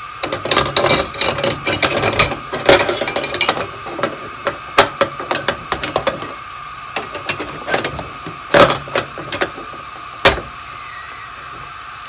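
Irregular metallic clicking, rattling and knocking as a kitchen part that has not seated properly is worked and pushed back into place, in clusters with short pauses, over a steady high hum.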